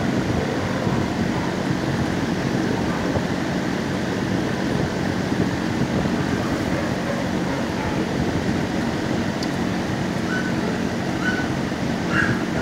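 Steady, loud low rumble of a shelter kennel room's background noise, with a few faint short high sounds near the end.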